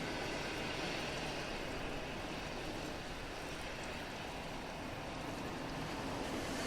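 Steady rain with the hiss of car tyres on a wet road, growing a little louder near the end.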